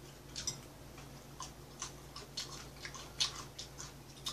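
Mouth sounds of eating: soft chewing and lip smacks, with a few light clicks of cutlery against dishes.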